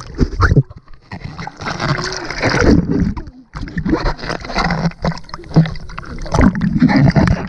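Sea water sloshing, gurgling and splashing around a waterproof camera bobbing at the surface, dipping in and out of the water, with irregular splashes and a brief muffled lull about three and a half seconds in.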